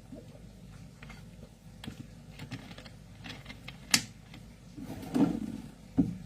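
Scattered light clicks and taps, with a sharp click about four seconds in, a short rustle a second later, and a knock near the end.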